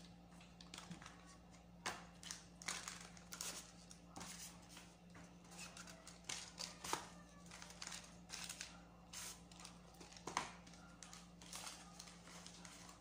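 Cardboard phone box and paper packaging being handled: irregular soft rustles, taps and slides as the box is turned over and paper inserts are pulled out. A steady low hum runs underneath.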